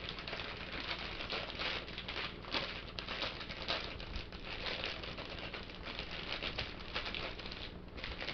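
Clear plastic packaging bag crinkling and crackling as it is handled and turned over, with a toy sealed tight inside. The crackling is continuous, with irregular sharper crackles.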